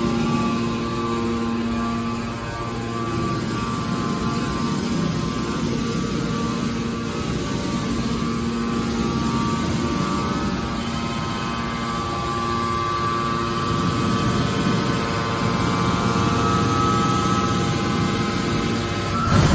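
Hydraulic scrap metal baler's power unit running: a steady mechanical hum with a whine of several steady tones, and a brief thump near the end.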